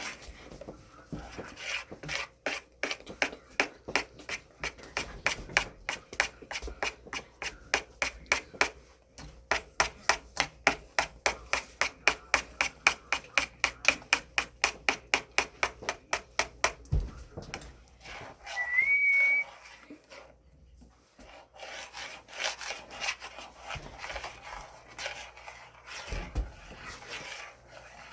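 Fast, even rubbing or scraping strokes, about three a second, that stop about 17 seconds in. They are followed by one short, high whistle-like tone that rises and then holds, and then fainter scattered rubbing.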